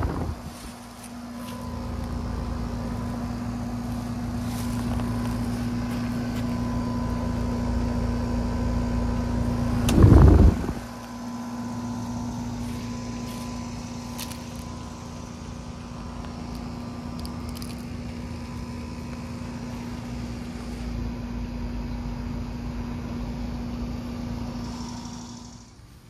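Outdoor heat pump condensing unit running: a steady hum with the rumble of the condenser fan. About ten seconds in there is a brief loud rush over it, and the sound drops away near the end.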